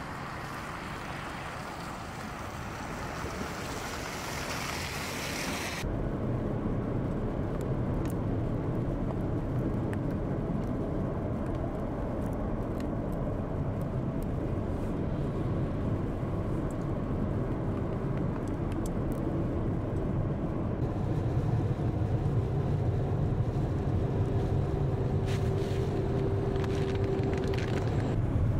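Wind noise at first; from about six seconds in, it gives way to a steady low vehicle engine rumble, which grows a little louder near the end.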